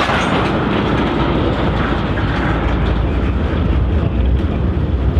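Diesel freight locomotives running with a steady low rumble.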